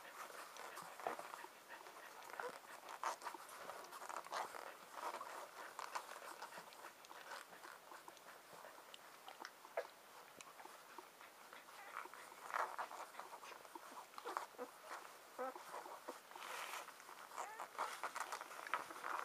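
Six-day-old husky puppies nursing: faint, irregular wet suckling and smacking clicks, with small squeaks and grunts from the pups.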